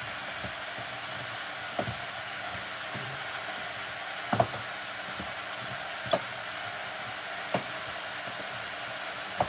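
Chopped vegetables and kidney beans sizzling steadily in a stainless steel pot while being stirred, with a wooden spoon knocking against the pot five times, a second or two apart.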